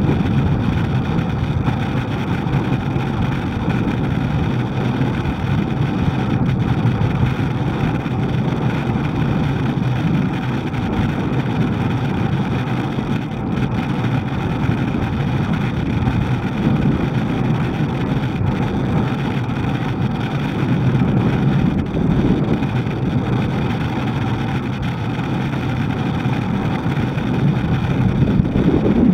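Steady rumble of wind on the microphone mixed with road noise while riding along a road, with no sharp events.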